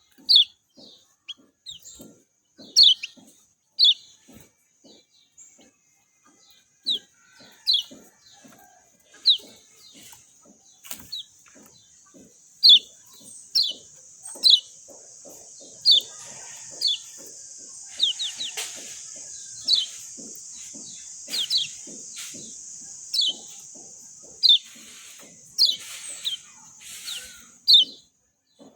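Kecial kuning, a white-eye songbird, giving short, sharp, high chirps, each a quick downward sweep, about one a second. A steady high hiss runs beneath the calls from about six seconds in until just before the end.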